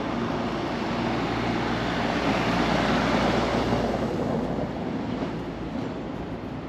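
A vehicle passing on the cobblestone street: a broad rumble of tyre and road noise that swells to its loudest about three seconds in, then fades away.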